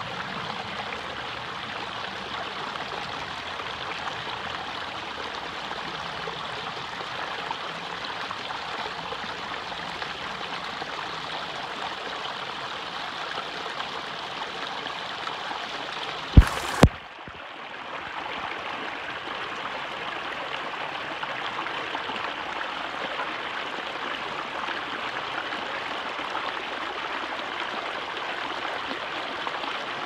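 Small rocky stream splashing and rushing steadily over boulders in a shallow cascade. About halfway through, two sharp clicks cut in close together and the water sound briefly drops before returning.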